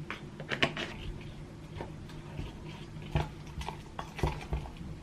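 A utensil clinking and scraping against a bowl while pancake batter is mixed, with a few sharper knocks.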